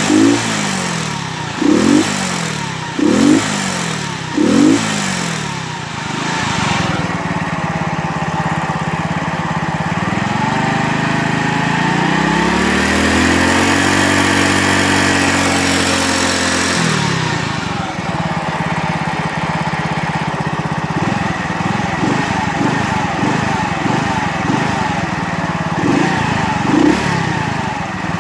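Alpha moped's four-stroke single-cylinder engine blipped several times, then revved up and held at high revs for several seconds before dropping back to idle, with a few more blips near the end. The owner says a knock in the engine starts from about 4,000 rpm.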